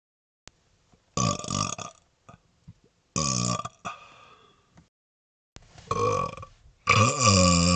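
A man burping deliberately, over and over: a few short burps, then a long, drawn-out burp of about two seconds near the end.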